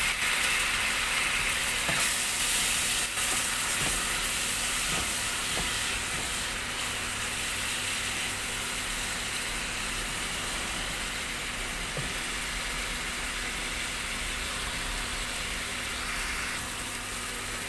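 Onion and spice masala sizzling steadily in hot mustard oil in a non-stick wok, just after a splash of water is added to keep the spices from burning, with a few light knocks of a wooden spatula stirring.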